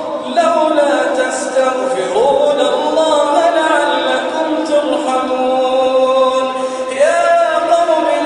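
A man reciting the Quran in a melodic chant, stretching long notes that slide up and down in pitch. A new phrase begins about seven seconds in.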